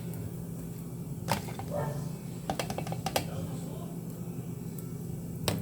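A utensil clicking and tapping a few times against a baking tray as tomato sauce is spread over pizza dough, over a steady low hum.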